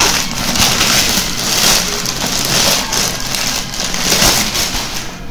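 Loud, uneven rustling and scraping from a cardboard earbuds box being handled and turned close to the microphone, with a few small ticks. The noise cuts off sharply at the end.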